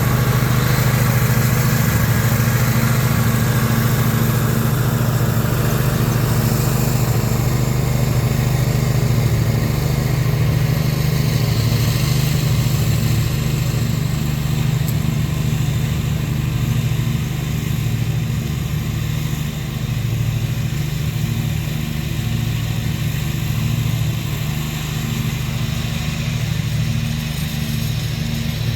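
Briggs & Stratton Intek 20 hp V-twin engine on a zero-turn mower running steadily, on a test run to check that the new oil pan gasket holds.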